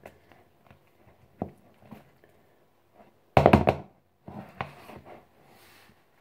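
Kitchen utensils knocking against a mixing bowl while buttercream is prepared: a few light taps, then a quick cluster of sharp knocks about three seconds in, the loudest part, followed by softer knocks.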